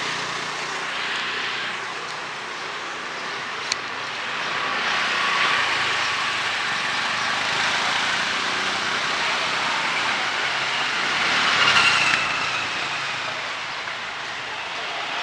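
Wet street ambience: a steady hiss of rain and traffic on a rain-soaked road, with a vehicle passing louder about twelve seconds in. A single sharp click sounds a few seconds in.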